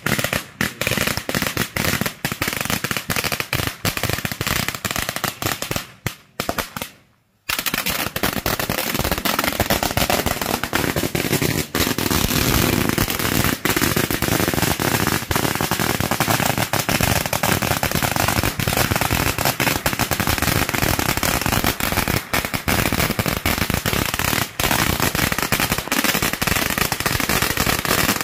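A long string of firecrackers going off in rapid, continuous cracks. The cracking stops for about a second and a half roughly six seconds in, then resumes and runs on denser.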